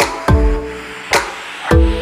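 Background music with a beat: deep drum hits that drop quickly in pitch, three or four in the two seconds, over held synth-like notes.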